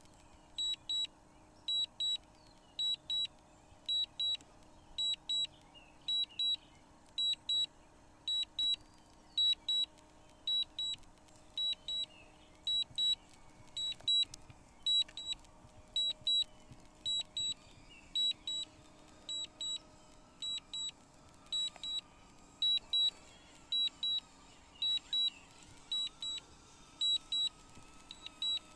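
Drone controller warning beeps: a short high double beep repeating about once a second, over a faint steady hum. The flight is being made under strong wind warnings.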